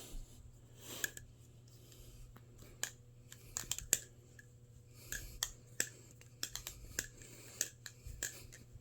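Balisong trainer being flipped: irregular sharp metallic clicks and clacks as the handles swing and strike each other and the blade, coming in quick clusters with short pauses.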